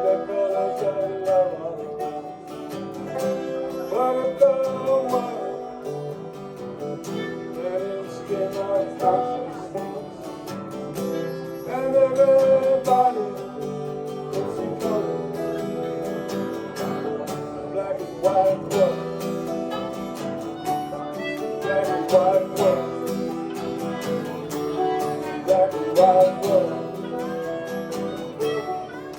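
A man singing to strummed acoustic guitar, a live folk song with the melody wavering over steady chords.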